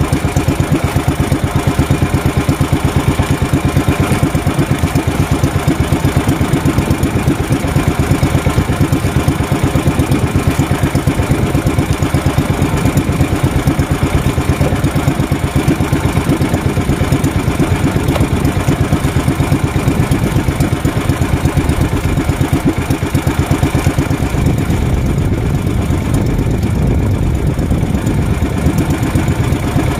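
Small fishing boat's engine running steadily with a fast, even putter; the beat grows smoother near the end.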